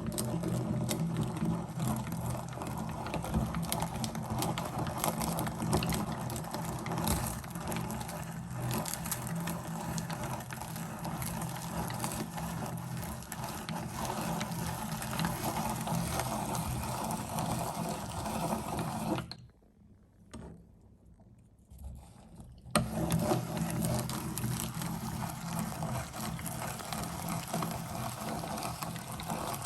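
Meat grinder running and grinding mini ice cream: a steady motor hum with a continuous crackle and squish. It stops for about three seconds past the middle, then starts again.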